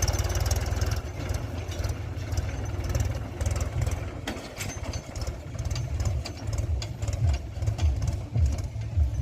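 Diesel engine of heavy machinery running at low revs, a low pulsing throb with scattered rattling clicks.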